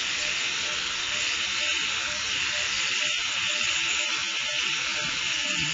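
Electric animal clippers running steadily, shaving the fur from around a dog's wounds.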